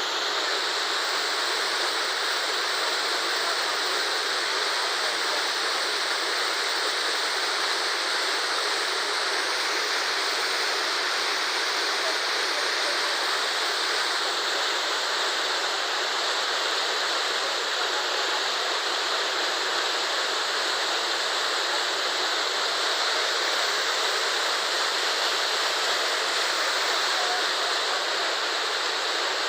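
Waterfall: falling water rushing steadily and without a break.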